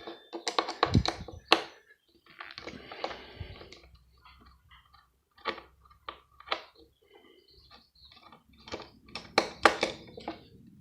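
Irregular small clicks, taps and scrapes of a screwdriver working at the screws of a plastic multi-socket plug adaptor, with a longer scraping stretch a few seconds in and a quicker run of clicks near the end.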